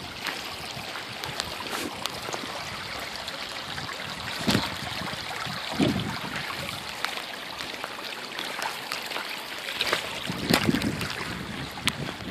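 Runoff water flowing in a shallow stream over gravel and stones, a steady rushing trickle, with a few louder bumps now and then.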